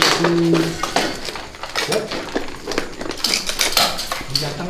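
Scattered light clinks and knocks, like metal or glass tapping, with a short low hum from a voice right at the start.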